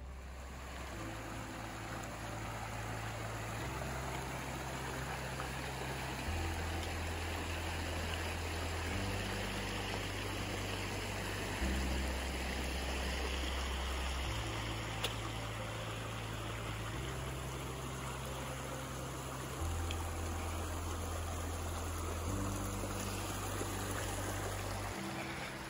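A shallow mountain creek rushing over rocks, under background music of slow, sustained low chords that change every two to three seconds. The music drops out near the end.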